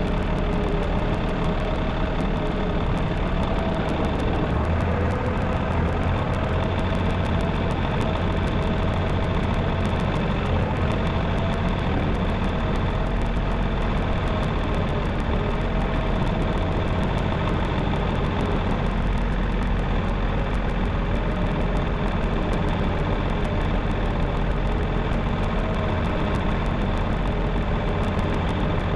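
A vehicle engine running steadily throughout, a continuous low rumble with a slowly wavering mid tone.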